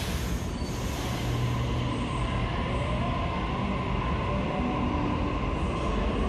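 Sydney Trains double-deck electric train pulling out of an underground platform, running with a steady hum and a faint motor whine. A hiss of air fades out at the very start.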